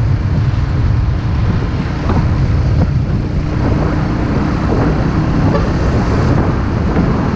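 Heavy diesel truck traffic on a highway, engines running and tyres on the road: a steady low rumble.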